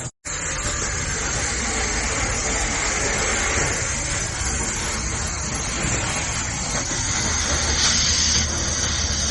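Stick welding arc crackling and hissing steadily; the sound cuts out for a moment just after the start.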